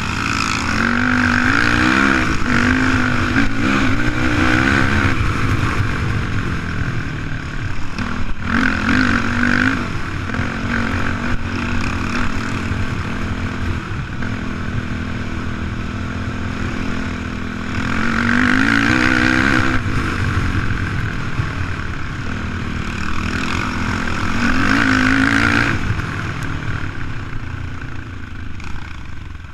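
Yamaha YFZ450X quad's single-cylinder four-stroke engine riding at trail speed, revving up and easing off again and again. It climbs to four louder, higher-revving pulls: a couple of seconds in, around a third of the way, and twice in the last third.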